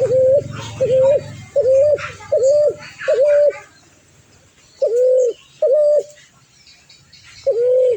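A bird calling in short, even hooting notes on one pitch, about one note every three-quarters of a second: a run of five, a pause, two more, then one near the end.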